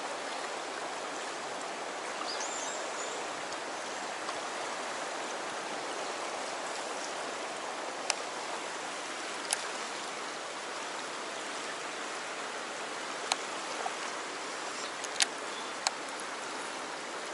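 Steady rush of fast-flowing river water swirling past the bank. A few sharp clicks stand out in the second half.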